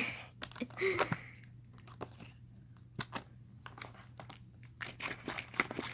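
Slime being stretched and squished in the hands: scattered small sticky crackles and pops, busiest near the start and again near the end.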